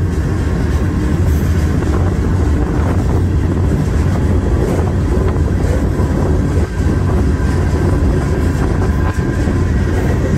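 Freight train in motion, heard from aboard a freight car: a loud, steady rumble of wheels and car body on the rails, with faint high squeal tones running through it.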